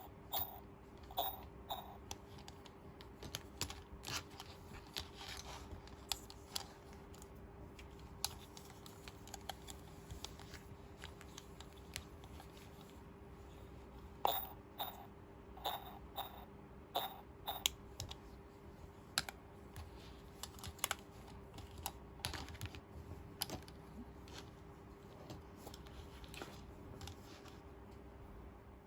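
Irregular light clicks and taps of small hard plastic toy pieces from a Hello Kitty nurse station playset being handled and set down, with a busier run of sharper clicks about halfway through.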